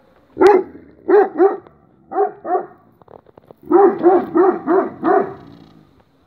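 A 20-month-old dog barking about ten times in short runs: a single bark, two pairs, then five in quick succession.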